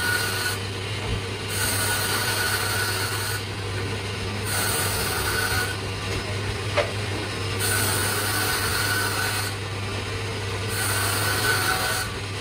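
Wood being worked by hand with an abrasive tool, filing or sanding, in slow strokes of one to two seconds that start about every three seconds. A steady low hum runs underneath, and there is a single sharp tap near the middle.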